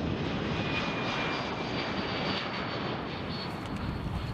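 Jet engines of a Boeing C-17 Globemaster III, four Pratt & Whitney F117 turbofans, running as the aircraft passes low with its gear down: a steady rumble with a thin high turbine whine over it, easing slightly near the end.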